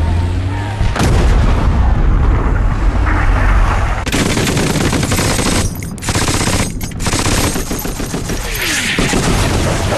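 War-film battle sound effects. A heavy low rumble of explosions for about the first four seconds, then rapid machine-gun fire in bursts with a couple of short breaks.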